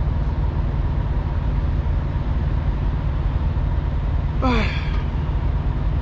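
Steady low rumble of an idling diesel truck engine, with a thin steady hum above it. About four and a half seconds in, a man lets out a short sigh that falls in pitch.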